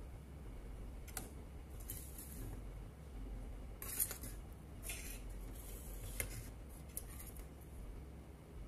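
Low steady hum with a handful of light clicks and brief rustles at irregular intervals, the sharpest about four seconds in.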